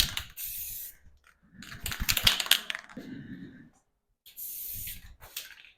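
Aerosol spray-paint can hissing in short steady bursts, with a louder stretch of clicking and rattling in the middle.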